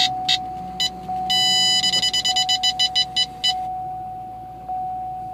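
Electronic warning chimes from a 2011 Corvette Grand Sport's dashboard just after start-up. A few short beeps, one longer tone, then a quick run of beeps about four a second that stops about three and a half seconds in. A thin steady whine sounds underneath throughout.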